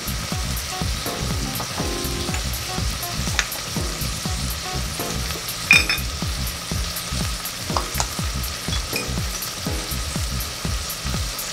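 Diced onion, carrot and potato frying in coconut oil in a stainless steel pot, a steady sizzle as the ground spices bloom in the hot oil. A few sharp clicks come through, about a third, halfway and two-thirds of the way in.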